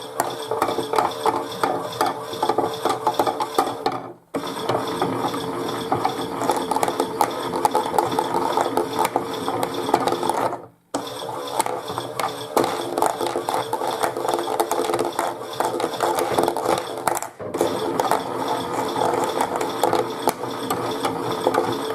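Chad Valley toy washing machine running its tumble: a small motor with a steady whine and a continuous clicking rattle from its plastic gears and drum. It stops briefly three times, about 4, 11 and 17 seconds in, then starts again.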